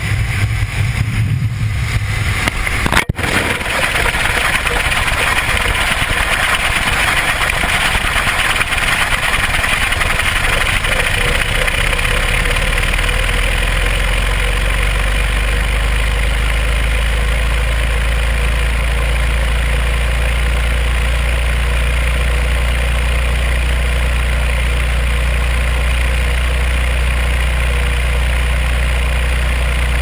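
Airplane engine and wind noise at first, a sharp click about three seconds in, then loud wind rushing over a small action camera falling through the air and spinning, settling about halfway through into a steady low whirring hum.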